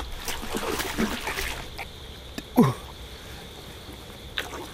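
Water splashing and dribbling as a hooked carp is fought at the surface close to the bank. About two and a half seconds in, there is a short cry that falls in pitch.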